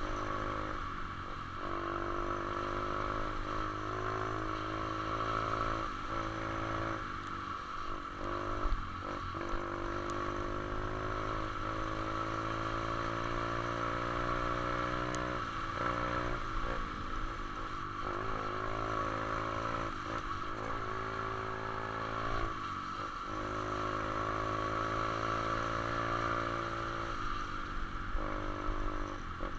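125cc single-cylinder pit bike engine running under way, its pitch climbing and falling as the throttle is worked, with brief drops every few seconds.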